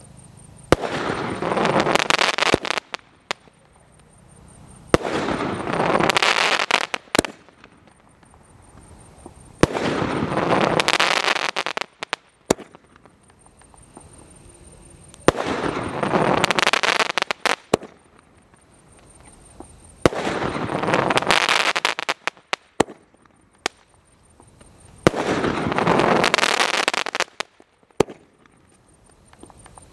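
A multi-shot aerial firework firing shot after shot, six times, about every five seconds. Each shot opens with a sharp crack and runs into about two seconds of loud, crackling hiss.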